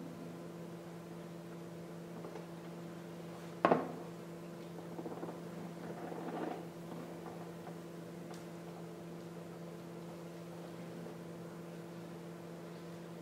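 Steady low electrical hum in a quiet room, with one sharp knock a few seconds in and some soft rustling just after it.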